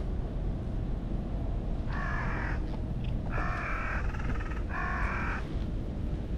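An orange-and-white cat meowing three times, short calls about a second apart, the second running into a brief rattling sound.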